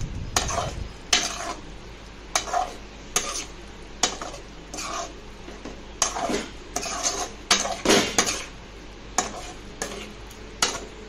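Metal slotted spoon scraping and clinking against an aluminium kadai as chunks of mutton are stirred through a thick tomato-onion masala, with a low sizzle beneath. The scrapes come at irregular intervals, closer together in the middle.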